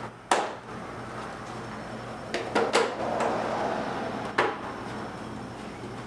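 Plastic handlebar cover panels of a KYMCO Super8 150 scooter clicking and knocking as they are worked loose from their locking tabs by hand. One sharp click comes shortly after the start, a quick run of three clicks follows a couple of seconds later with rustling plastic in between, and one more click near the end.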